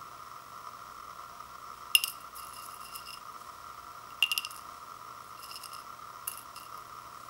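Fingers and dried ramen vegetable pieces clicking and scraping against a ceramic bowl: a sharp clink about two seconds in, another a little after four seconds, then a few fainter ticks.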